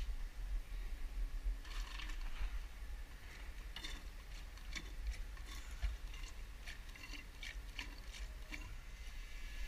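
Small irregular clicks and rattles from an oil-filling pump and its hose held in a transfer case's fill hole while new transfer case fluid is pumped in, coming faster, about two or three a second, in the second half, over a steady low rumble.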